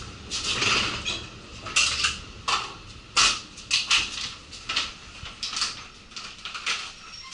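Irregular metallic clinking and knocking, more than a dozen sharp strikes at uneven intervals, as a carrier bag of hard objects is handled and jostled.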